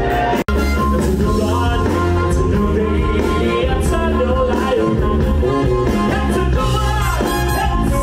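A live band plays with a male singer, backed by drum kit and saxophone. The sound cuts out for an instant about half a second in.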